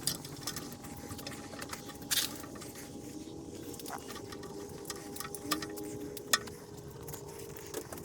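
Scattered sharp clicks and clinks of hand tools and metal engine parts being handled during engine assembly, over a steady faint hum.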